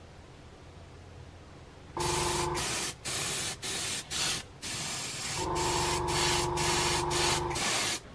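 Airbrush spraying: a hiss of air that starts about two seconds in, stops and restarts in several quick short bursts, then runs steadily for about two and a half seconds before cutting off near the end.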